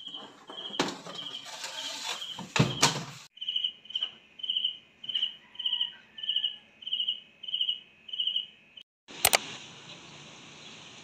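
A cricket chirping steadily in short high trills, about two a second. Over the first three seconds there is metal clatter from a muffin tray and the rack of a countertop oven, with a sharp clank near three seconds. A single click comes about nine seconds in, followed by a steady hiss.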